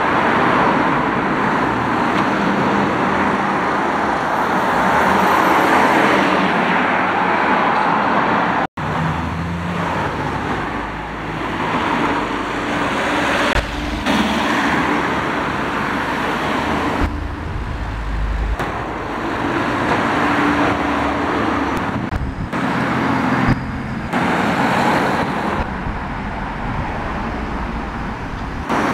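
Steady street traffic noise of passing cars and vans, broken by a brief dropout about nine seconds in.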